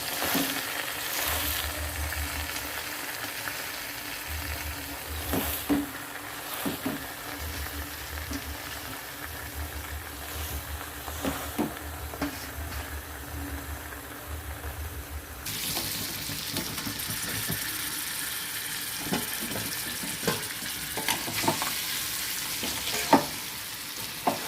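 Crab pieces frying in a thick spicy masala gravy in a kadai, sizzling steadily, with scattered knocks and scrapes of a stirring spoon. About fifteen seconds in the sizzle turns sharper and brighter.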